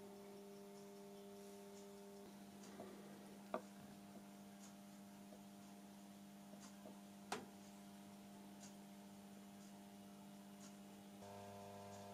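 Near silence with a steady electrical hum, and two faint sharp clicks about four seconds apart as the small metal Mikrokator gauge is handled on the table.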